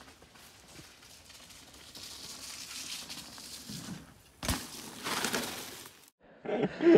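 Mountain bike rolling down a muddy dirt trail towards the listener, tyre noise on earth and leaves growing louder, then a sharp knock about four and a half seconds in as the bike crosses a log and rushes past close by. The sound cuts off suddenly near the end.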